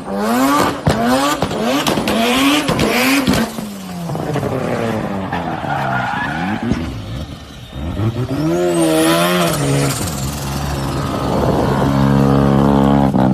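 Rotary-engined car driven hard, its revs rising and falling in quick repeated surges with tyre squeal, as in a drift. The pitch then falls away, rises again, and the engine holds steady high revs near the end.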